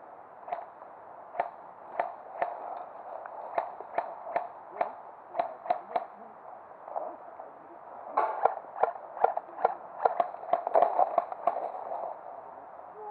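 Airsoft guns firing during a game: a string of single sharp snaps about half a second apart, then a faster cluster of shots about eight seconds in.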